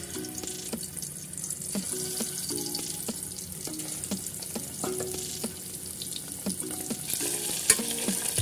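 Scored, spiced boiled eggs sizzling as they fry in hot oil in a pressure-cooker pan, the sizzle growing stronger about seven seconds in. Light clicks scattered throughout.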